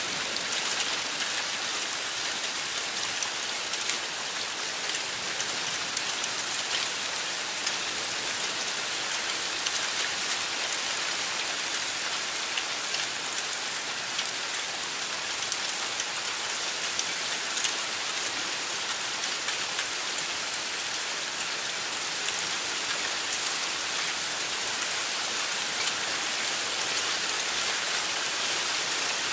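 Heavy thunderstorm downpour, the rain pouring steadily with scattered sharp ticks of drops striking nearby surfaces.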